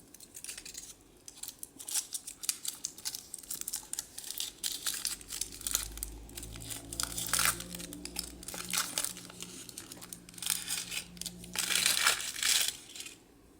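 Foil wrapper of a chocolate surprise egg being unwrapped, crinkling and tearing in quick irregular crackles, loudest near the end.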